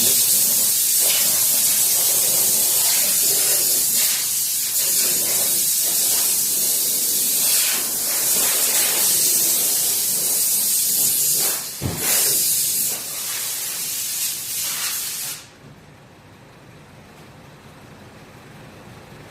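Loud, steady hiss of air or spray under pressure. It breaks briefly about twelve seconds in and cuts off sharply a few seconds later.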